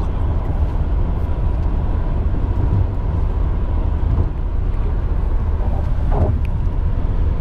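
Road and engine noise inside a moving car's cabin at highway speed: a steady low rumble with a faint steady tone above it, and a brief higher sound about six seconds in.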